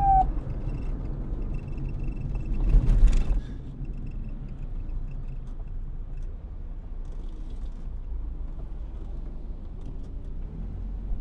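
A police siren's falling wail cuts off just after the start, leaving a low steady street-traffic rumble. About three seconds in, a louder rushing swell rises and then drops away suddenly.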